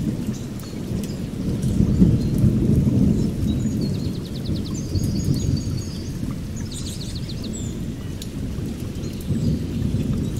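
Steady low rumbling noise, with short high bird-like chirps and trills about four seconds in, near seven seconds and again near the end.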